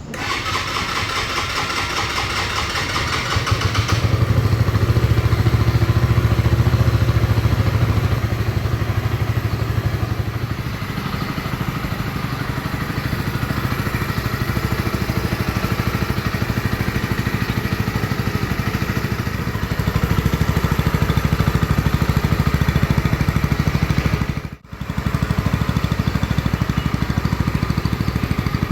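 Mastiff 125 motorcycle engine running steadily. It gets louder about four seconds in and again around twenty seconds in, and there is a sudden brief dropout near the end.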